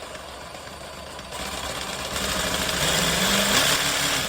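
Cerycose 18V brushless cordless jigsaw running, its variable-speed trigger squeezed so that the saw speeds up in steps and gets louder. The variable speed works well on this unit.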